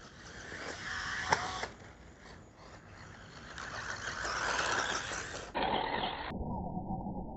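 Losi Mini-T 2.0 Brushless RC truck driving over dirt and grass: brushless motor and tyre noise rising and falling with throttle, with a sharp knock just over a second in.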